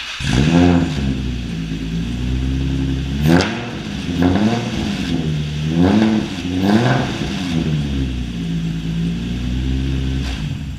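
Nissan 350Z's V6 engine running just after starting on a fresh battery, revved up and back down about five times, settling to idle between the blips.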